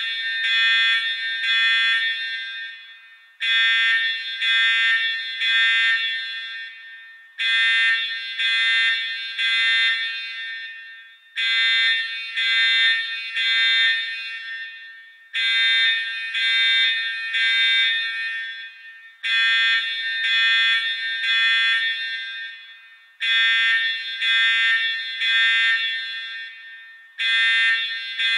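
Electronic emergency alarm buzzer sounding in groups of three short, high-pitched pulses that repeat about every four seconds, each group fading away before the next. This is the three-pulse pattern of a fire evacuation alarm.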